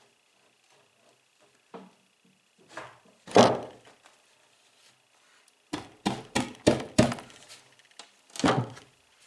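Wooden knocks and thunks from cabinet panels being worked together at a glue-up: a few single thunks, the loudest about three and a half seconds in, then a quick run of about five knocks at three or four a second, and two more near the end.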